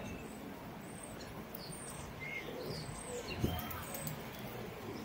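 Small birds chirping in short, high calls over a steady city street hum, with one soft knock about three and a half seconds in.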